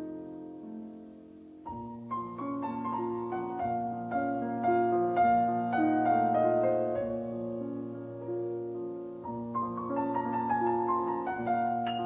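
Solo piano music. A held chord dies away, then about two seconds in a flowing run of notes begins and carries on.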